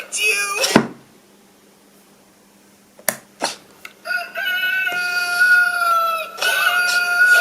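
A rooster crowing sound effect played through a small speaker, two long held calls starting about four seconds in. Two sharp clicks come shortly before it.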